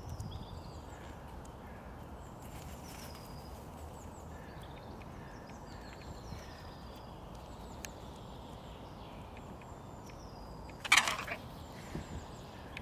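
Faint high chirps of small songbirds over a steady background hiss; about eleven seconds in, one loud, harsh call of a hooded crow lasting about half a second.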